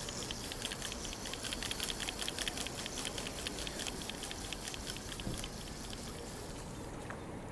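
Fishing reel being wound in quickly, a rapid even ticking that thins out and stops about four to five seconds in.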